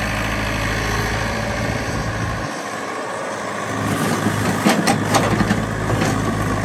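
Yanmar ViO70 mini excavator's diesel engine running steadily while it digs. About four to five seconds in comes a cluster of sharp knocks and clanks as the bucket and arm work in the mud and broken brick.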